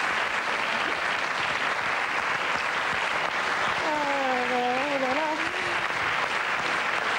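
Studio audience applauding steadily. About four seconds in, a single voice calls out briefly over the clapping.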